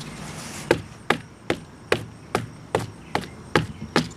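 A used cabin air filter being beaten against a hard surface to knock the dirt out: a steady run of sharp knocks, about two and a half a second.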